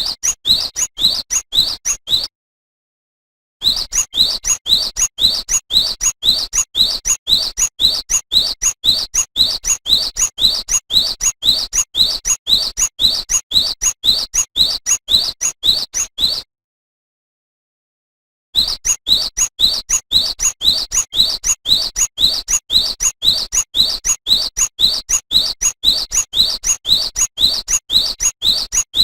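Cinereous tit (gelatik batu) singing a fast, evenly repeated series of high rising notes, about three a second. The song cuts off abruptly twice for a second or two of dead silence.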